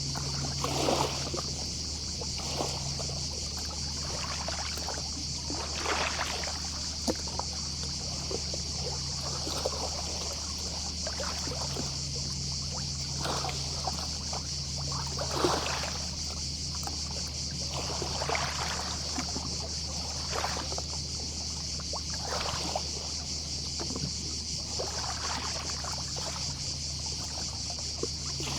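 Small, gentle sea waves lapping and splashing at the shoreline every second or two, over a steady high chorus of distant cicadas. A low steady hum runs underneath.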